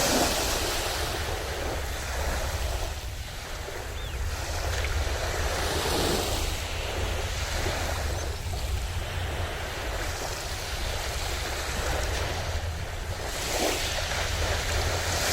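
Sea waves breaking and washing on the shore, swelling every few seconds, with a low rumble of wind on the microphone underneath.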